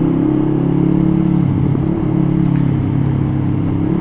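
Honda Rebel 500's parallel-twin engine breathing through an aftermarket full-system exhaust, running steadily while the bike is ridden, with a brief dip in the engine note about halfway through.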